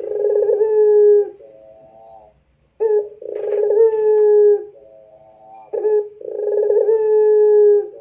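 Puter pelung ringneck dove cooing: three long, loud drawn-out coos about every three seconds, each held on one steady note and followed by a softer, shorter coo.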